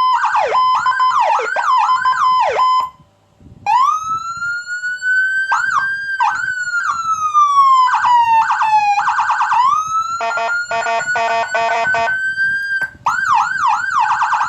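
Whelen 100-watt electronic siren sounding its tones in turn: fast repeated sweeps over a steady tone, cut off briefly about three seconds in, then a slow rising and falling wail broken by a few quick sweeps, a rapid stuttering pulse, and fast repeated sweeps again near the end.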